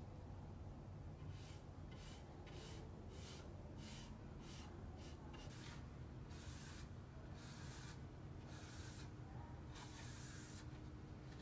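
Repeated hissing strokes of something being rubbed by hand across a wooden board. The strokes are short and quick at first, then come as a few longer, slower strokes, over a low steady hum.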